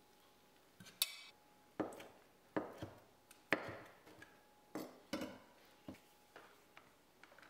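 Kitchen knife slicing cooked chicken pieces on a bamboo cutting board: a series of sharp knocks, each time the blade cuts through and strikes the board.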